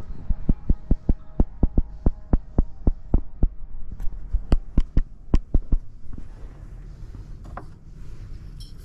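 A rapid series of sharp thumps, about four a second, that stops about six seconds in, over a steady low rumble.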